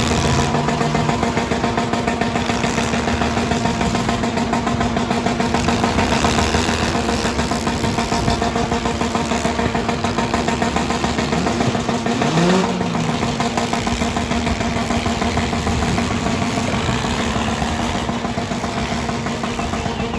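Several four-cylinder demolition-derby cars running and revving together, a continuous layered engine noise. There is a short rise and fall in pitch about twelve seconds in.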